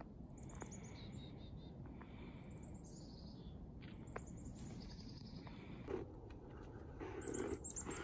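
Small songbirds calling in a snowy wood: several runs of short, high-pitched chirps that fall in pitch, over a faint outdoor hiss, with a louder rustle near the end.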